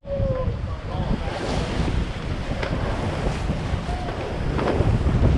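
Wind buffeting the microphone over the rush of sea water on a sailing yacht under way: a steady, rumbling noise with no clear rhythm.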